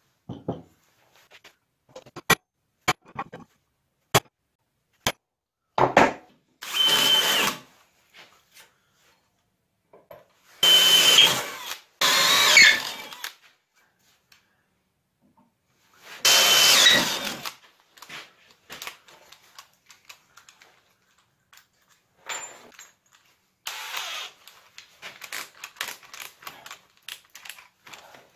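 A handheld power tool run in four short bursts of about a second each, with a steady high whine in each. Sharp clicks of metal parts being handled come before the bursts, and lighter clattering follows near the end.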